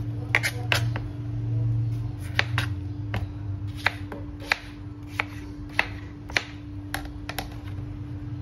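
Knife chopping peeled pineapple into chunks on a plastic cutting board: a string of sharp knocks, about one every half second, over a steady low hum.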